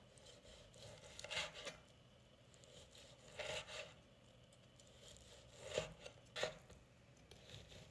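Santoku knife slicing through a cooked ribeye steak on a bamboo cutting board: a few faint strokes a second or two apart, each a soft tearing rasp as the blade draws through the meat and meets the board.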